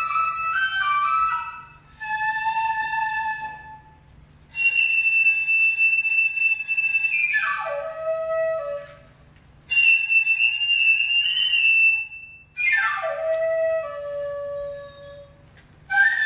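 Nōkan, the Noh transverse bamboo flute, played solo in phrases of long held notes broken by short breaths. Shrill high notes are held and then slide down into low notes.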